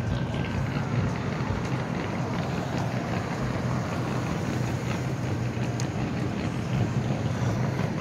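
Steady low rumble of street traffic and vehicle engines, with wind buffeting the microphone.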